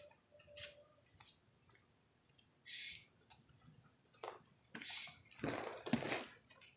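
Faint outdoor ambience with a brief bird chirp and a few light clicks, then a rustling noise growing louder near the end.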